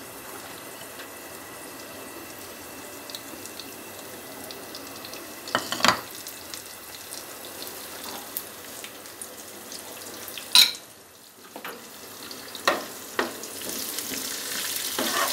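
Cumin seeds, curry leaves and whole dried red chillies frying in hot ghee for a tadka (baghar): a steady soft sizzle with a few sharp clicks. Near the end the sizzle grows louder as a steel ladle starts stirring the pan.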